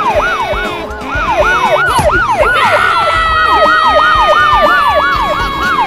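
Police siren in fast yelp mode, rising and falling about three to four times a second. A second long tone slides slowly downward from about halfway through.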